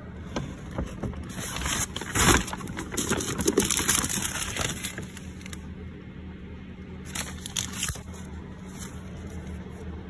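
Paper bag and clear plastic takeout container crinkling and rustling as they are handled, loudest in the first half and again briefly about seven seconds in, over a steady low hum.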